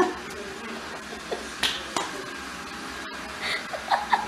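Robot vacuum running steadily, with scattered light clicks and a few short high squeaks near the end.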